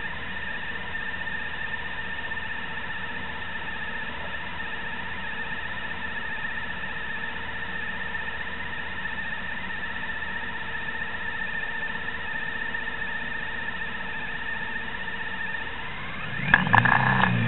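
Steady whine of several held high tones over a low hum from a stationary vehicle. About sixteen seconds in, a rising sweep and louder, rougher engine noise come in.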